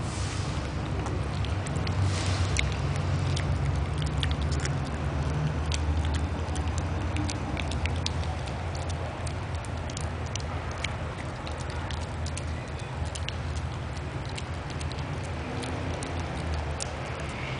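A Shih Tzu chewing raw carrot: irregular sharp crunching clicks, scattered through a steady low background hum.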